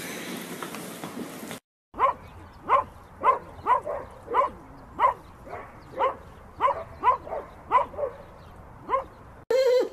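A dog barking in a steady series, about two barks a second for some seven seconds, each bark short and falling slightly in pitch. Before it, a brief stretch of noisy hiss cuts off suddenly.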